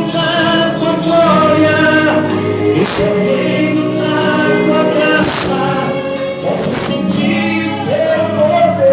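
Gospel song: sung vocals holding long, gliding notes over a band, with a few bright crashes.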